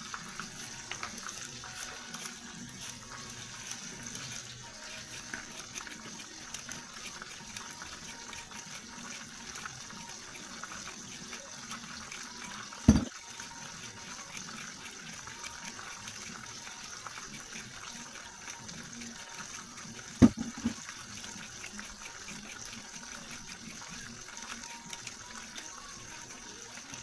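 Kitchen tap running steadily into a sink, with two sharp knocks, one about halfway through and another later on.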